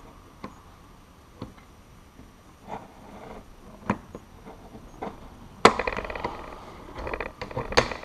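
Clicks and knocks as a polyurethane bandsaw tire is worked over the rim of a metal bandsaw wheel on a wooden bench. A loud clank with a short rattle comes about two-thirds of the way through, and another clank near the end.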